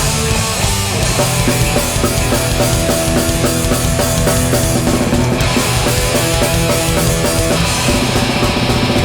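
Hardcore punk band playing live: distorted electric guitars, bass and fast, driving drums in the instrumental opening of a song, with no vocals yet.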